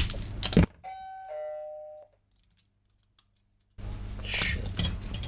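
A sharp click, then a two-note electronic ding-dong chime: a higher note stepping down to a lower one, lasting about a second. Small handling clicks return near the end.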